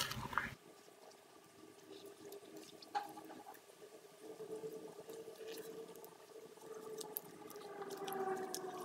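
Faint sloshing, squishing and small drips of thick indigo dye liquid as rubber-gloved hands squeeze and massage fabric under the surface in a dye vat.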